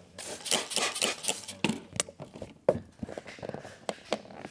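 STEK DYNOchrome paint protection film crinkling and rustling as it is handled and stretched by hand, with scattered sharp clicks and one louder snap a little past the middle.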